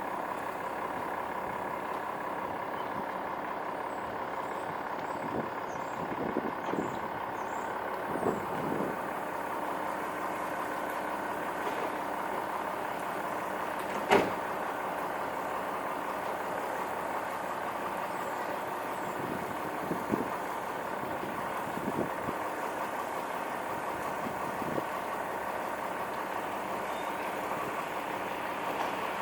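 A vehicle engine running steadily, with a few short soft knocks and one sharp click about fourteen seconds in.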